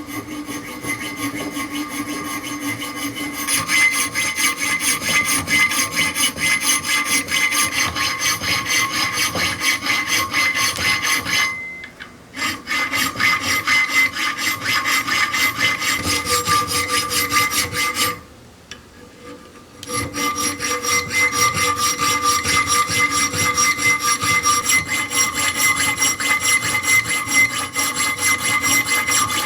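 Fast back-and-forth scraping of a hand tool such as a file, rasp or saw, running steadily with two short breaks, one about a third of the way in and one about two-thirds through.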